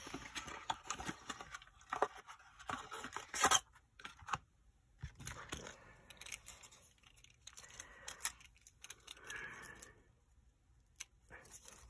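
Quiet handling of craft supplies on a work mat: a roll of glue dots being unrolled and a dot peeled from its backing, with light rustling, scraping and a few sharp clicks.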